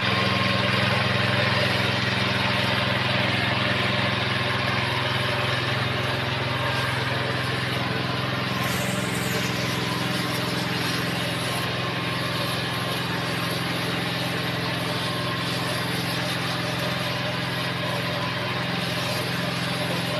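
Small engine running steadily at an even speed.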